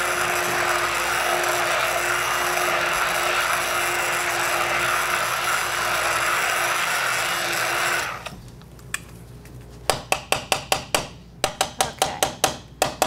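Handheld immersion blender running steadily while it blends a sauce in a saucepan, then switched off about eight seconds in. Near the end come two quick runs of sharp taps, several a second.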